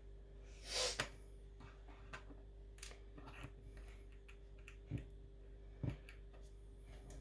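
Small plastic Lego pieces clicking and tapping as they are handled and fitted, a few sharp clicks a second or so apart. About a second in comes one short sniff, the loudest sound here.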